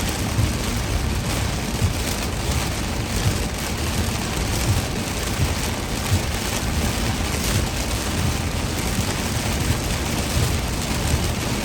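Heavy rain pelting a moving car, a steady hiss with a low rumble underneath from the car on the road.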